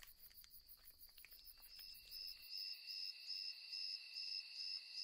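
Faint night insects chirping: a steady high trill with an even pulse, a little louder after about two seconds, with a few faint ticks in the first two seconds.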